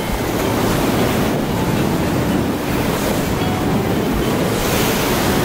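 Sea surf washing against a rocky shore, with wind buffeting the microphone; the wash swells near the end.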